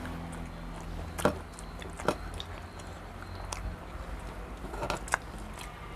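Eating sounds at a meal: chewing and biting with a few short sharp clicks, about four, over a low steady hum.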